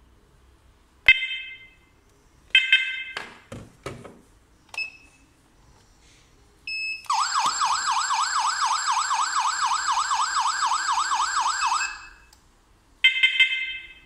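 Wireless outdoor alarm siren sounding a fast warbling wail for about five seconds, its pitch sweeping up and down about four or five times a second, triggered as a test after being coded to the alarm control panel. Before it come two short electronic beeps and a few plastic knocks from handling, and another short beep follows near the end.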